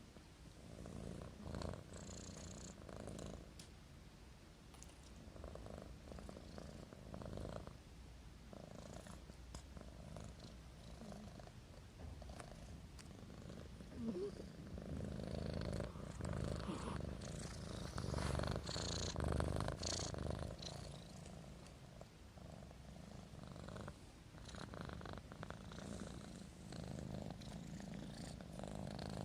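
A cat's low, rhythmic rumble, swelling and fading with each breath, the sound of a kitten purring or snoring.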